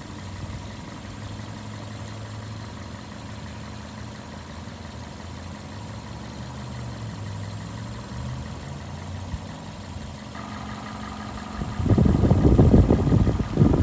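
2006 Toyota Corolla's 1.8-litre VVT-i four-cylinder engine idling steadily, heard from over the open engine bay. It is running just as it should, a healthy idle. Near the end a loud low rumble buffets over it.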